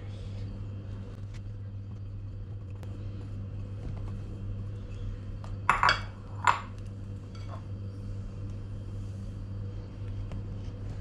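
Glass bowls clinking two or three times, loudest about six seconds in, as flour is tipped from a small glass bowl into a glass mixing bowl of marinated chicken. A steady low hum runs underneath.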